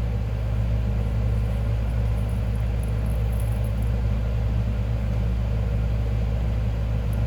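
Steady low machine hum, unchanging throughout, with a few faint light clicks about three seconds in.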